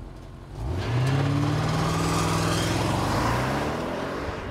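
2013 Audi S8's twin-turbo V8 under hard acceleration. The engine note comes in about a second in, climbs in pitch, then holds and slowly fades as the car pulls away.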